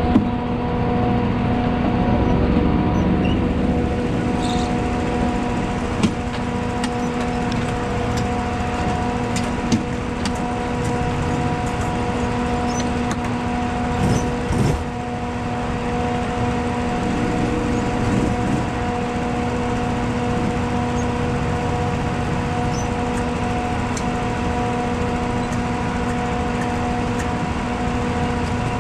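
Honda GX200 kart engine running at a steady idle, an even hum with no revving, with a few short clicks and knocks over it.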